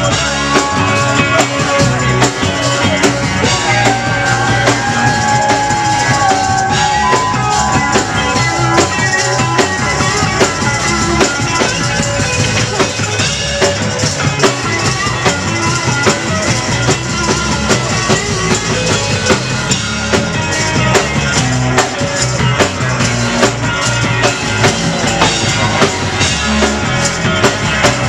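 Live rock band playing an instrumental stretch of a song: electric guitar and drum kit over a steady beat, with a tambourine shaken along, and some held lead notes in the first few seconds.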